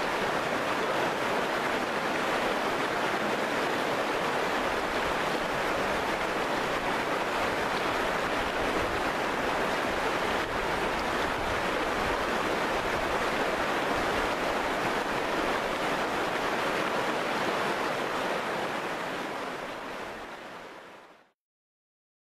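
Shallow river rushing over rocks, a steady rush of water that fades out over the last few seconds.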